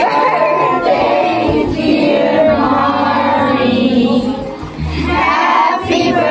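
Girls' voices singing together, loud and close.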